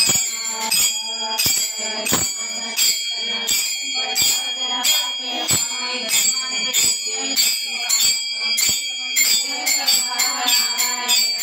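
Devotional bhajan music: small metal hand cymbals (taal) struck in a steady beat about every 0.7 s, each stroke ringing, over a pitched melody.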